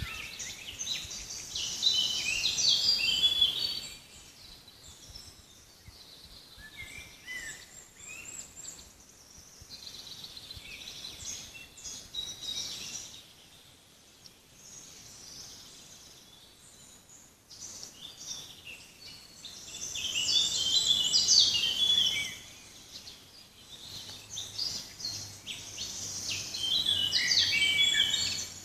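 Several songbirds singing: bursts of rapid, high notes that rise and fall in pitch, loudest near the start, about two-thirds through and near the end, with quieter, scattered calls between them.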